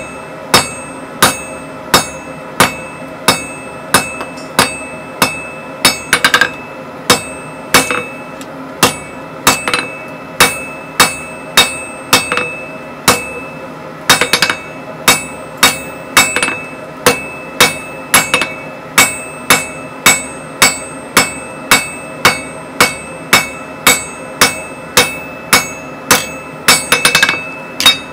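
Hand hammer striking red-hot steel on an anvil at a steady pace, about three blows every two seconds, the anvil ringing after each blow. Now and then a quick run of lighter taps, and a brief pause about halfway through.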